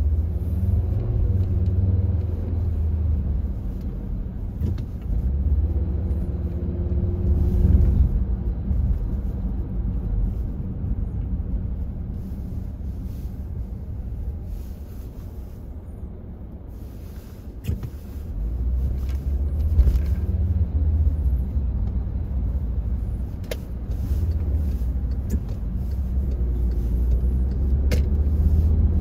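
Car driving, heard from inside the cabin: a steady low engine and road rumble that dies down for a few seconds about halfway through, then picks up again.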